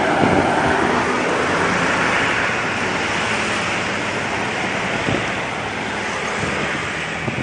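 Road traffic rushing past: a steady roar of vehicle engine and tyre noise, loudest near the start and slowly fading.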